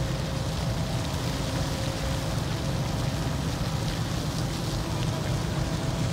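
Large ship's machinery running with a steady low rumble and a faint constant hum, over a continuous hiss of splashing water.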